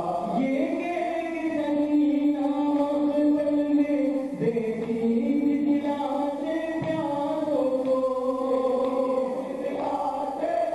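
Male voices chanting a Shia noha in long, held notes that step up and down in pitch.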